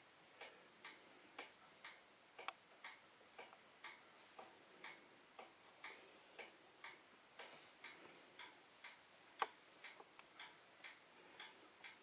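Faint, regular ticking, about two ticks a second, like a clock, with two sharper, louder clicks, one a few seconds in and one near the end.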